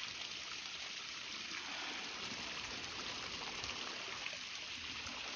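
Running water of a stream flowing steadily.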